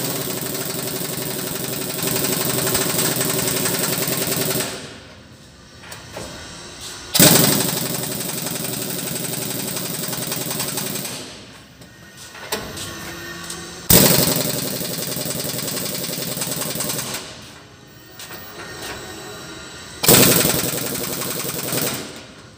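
Impact wrench hammering on nuts in four runs of about four seconds each, each starting suddenly, with short pauses between runs.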